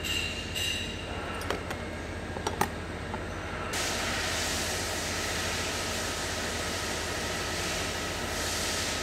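A few light metallic clicks as the small parts of a brass ball valve are handled, over a steady low background rumble. About four seconds in, an even hiss comes in on top of the rumble and holds.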